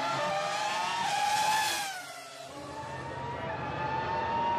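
High-revving race car engine sound effect: the pitch climbs, glides down with a brief drop in loudness about two seconds in as a car passes, then climbs steadily again.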